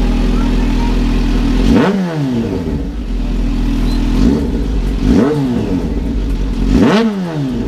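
Kawasaki Z H2's supercharged inline-four idling through an aftermarket SC Project exhaust, blipped three times: each rev climbs quickly and falls straight back to idle.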